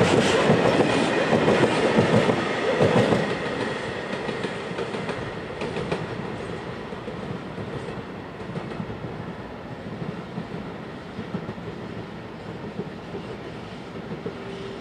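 Freight train of flat wagons rolling past at speed, its wheels clicking over the rail joints. The last wagons go by about three seconds in, and the noise then fades steadily as the train recedes.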